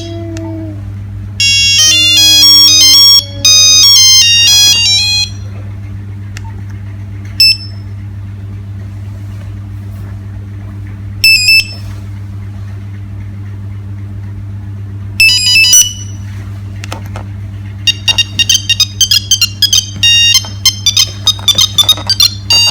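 Nokia 3610 mobile phone playing its built-in electronic ringtones through its speaker: several short melodies and beeps with pauses between them, then a fast repeating tune that starts near the end.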